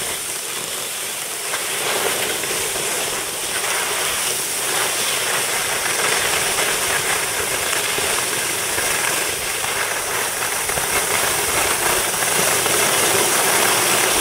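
Steady hiss of skis sliding and scraping over a packed piste, heard from a skier on the move, growing a little louder toward the end.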